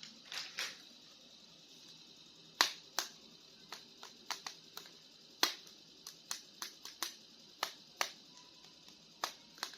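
Small plastic action figures and their packaging being handled: a string of about twenty sharp, irregular clicks and taps.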